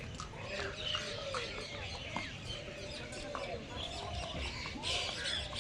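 Several birds calling at once, with repeated short, arching calls and higher squeaks and chirps overlapping one another.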